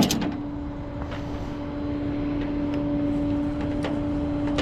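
Truck engine running at low speed while driving, heard from inside the cab: a low rumble with a constant, even drone.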